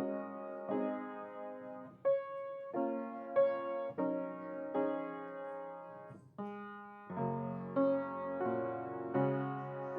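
Piano playing slowly, chords struck about once or twice a second, each fading away before the next.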